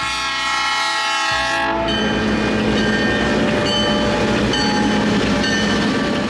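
A diesel locomotive's air horn sounds one long chord that stops about two seconds in. The engine then rumbles and the wheels clatter as the locomotive and its train roll past.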